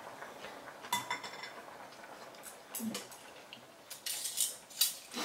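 Eating sounds: chopsticks and utensils clinking against a bowl and the pot, with one sharp, ringing clink about a second in. Near the end come noisy bursts of noodles being slurped.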